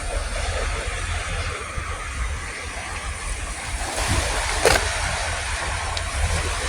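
Steady outdoor background noise with wind buffeting the microphone, and one short knock about four and a half seconds in.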